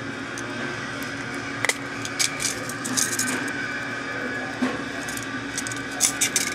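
Metal hand tools clicking and clinking as they are handled and set down, a few scattered knocks over a steady background hum.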